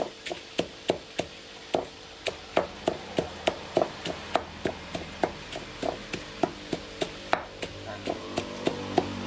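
Stone pestle pounding chili paste in a heavy stone mortar: even, repeated dull strikes, about three a second.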